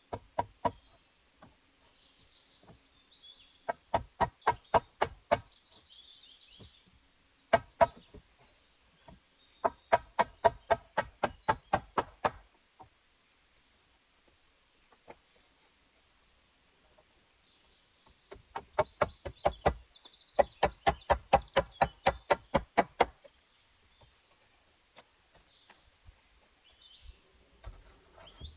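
Hammer blows struck in quick runs of several strikes, about four or five a second, each with a short ringing note. Birds chirp faintly in the background.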